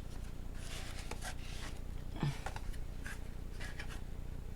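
Soft rustling and rubbing of cardboard and plastic packaging being handled, in scattered short bits, over a steady low hum. A short low sound comes about two seconds in.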